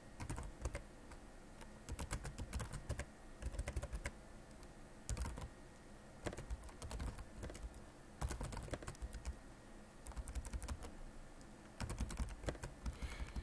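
Computer keyboard typing in short bursts of rapid keystrokes with brief pauses between them.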